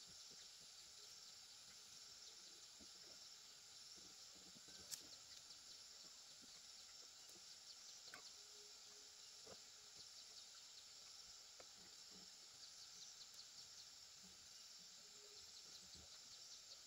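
Near silence: faint outdoor ambience with insects chirping faintly and a few soft clicks.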